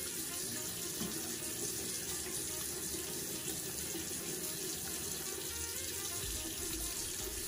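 Bathroom tap running steadily into the sink.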